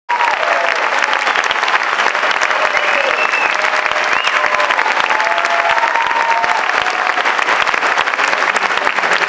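Theatre audience applauding steadily, with a few cheering voices rising over the clapping.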